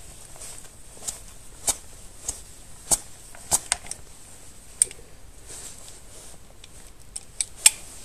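Irregular sharp metallic clicks and clinks of clutch springs and their bolts being fitted by hand into the motorcycle's clutch, with the loudest click near the end.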